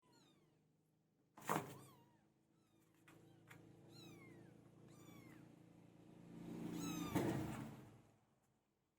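Several young kittens mewing, with many short, thin, high-pitched cries that fall in pitch and overlap one another. There are two louder knocks, about a second and a half in and again near the seven-second mark.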